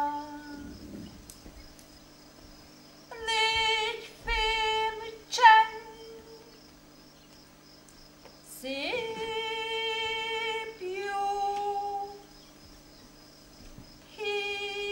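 A voice singing wordless held notes in short separate phrases with pauses between, some notes sliding up into pitch, over a faint steady low hum.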